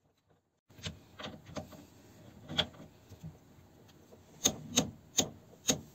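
Metal wrenches clicking on a refrigerant line set's flare nut as it is torqued: scattered soft clicks and handling noise, then a run of sharp metallic clicks, about two to three a second, in the last second and a half.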